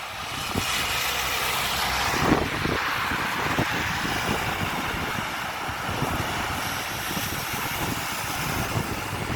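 Steady rain falling, an even hiss with many small drop impacts throughout and one louder knock about two seconds in.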